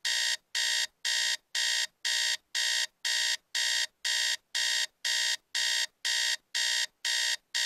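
Digital alarm clock beeping in an even, high-pitched rhythm of about two beeps a second.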